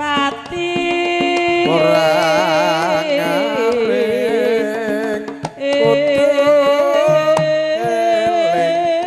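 Javanese gamelan playing a Tayub gending, with steady ringing metallophone tones and drum strokes. A voice sings a wavering, heavily ornamented melody over it, with a short break about halfway through.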